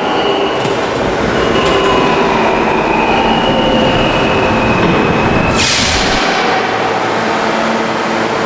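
New York City subway train running through the station: a steady loud rumble with high-pitched wheel squeal tones coming and going. A sharp burst of hiss comes about five and a half seconds in and fades within a second.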